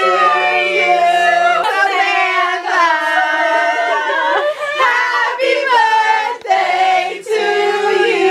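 A group of young women singing together, several voices holding and sliding between notes.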